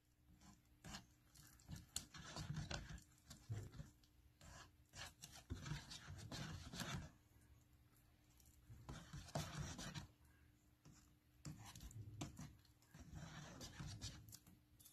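A spoon stirring thick instant chocolate rice porridge in a disposable cup: faint scraping and scratching against the cup's sides and bottom, in short irregular spells.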